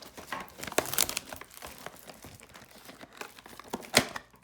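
Plastic wrapping on a trading-card box being crinkled and torn open by hand: irregular crackling with a sharp snap about four seconds in.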